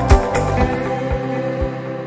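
Instrumental background music with sustained tones and a low beat; the drumming is busy at first and thins out about half a second in, leaving a soft beat about twice a second.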